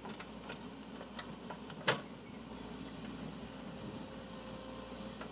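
Backhoe loader's diesel engine running steadily, with scattered light clicks and one sharp click about two seconds in.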